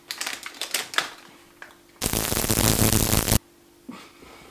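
Plastic snack wrapper crinkling and rustling as it is handled, in scattered crackles. About two seconds in, a loud burst of hissing noise lasts about a second and a half and cuts off suddenly.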